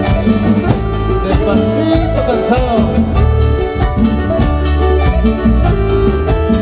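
Live band playing a chilena: electronic keyboards (Korg Kronos and Korg Triton) carrying the melody and chords over a drum kit keeping a steady beat.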